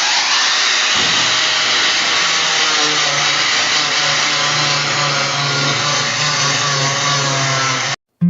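An electric power tool running steadily at full speed, with a steady hum under a loud whirring noise, cutting off suddenly near the end.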